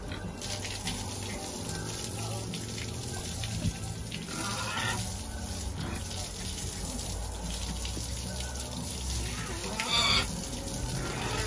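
Water from a garden hose spraying and splashing over pigs and a wet concrete pen floor, a steady hiss. Two brief higher-pitched sounds stand out, one about four and a half seconds in and a louder one near the end.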